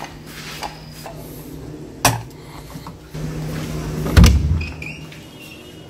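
Wooden interior door with a metal knob being handled: a sharp click about two seconds in, then a heavier thump a couple of seconds later over a low steady hum.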